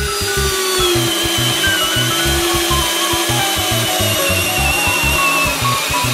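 Makita CXT 12V cordless drill-driver (FD05) boring into a wooden post in low gear (speed 1), since in high gear it could not finish the hole; the motor whine sags slowly in pitch under load. Background music with a steady beat plays underneath.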